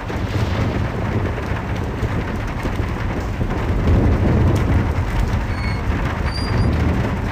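Heavy rain falling during a thunderstorm, with a continuous low rumble of thunder that swells about four seconds in.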